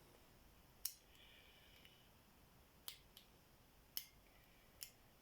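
Faint, sparse metallic clicks of a lock pick and tension wrench working the wafers of a small TSA wafer lock: five separate ticks, mostly about a second apart, two of them close together near the middle.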